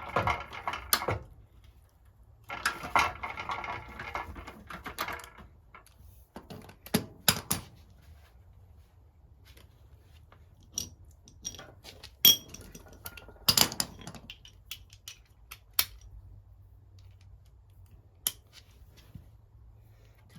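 Socket wrench ratcheting in two short runs on rusted bumper-iron bolts, followed by scattered sharp metallic clinks and knocks of tools and loose parts.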